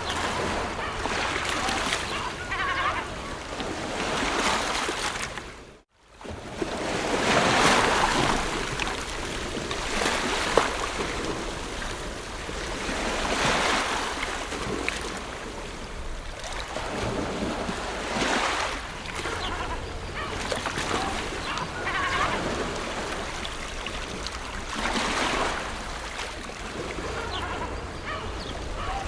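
Ocean waves breaking and washing in, swelling and fading every few seconds. The sound cuts out briefly about six seconds in, then comes straight back.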